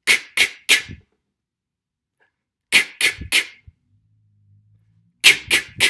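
Beatboxed snare drum sounds made with the mouth, put to a pattern: three short, sharp bursts in quick succession, repeated three times with pauses of about two seconds between the groups.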